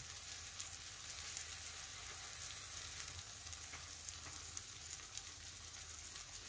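Egg curry in tomato-onion masala sizzling gently in a frying pan over a low flame: a faint, steady hiss with light crackles.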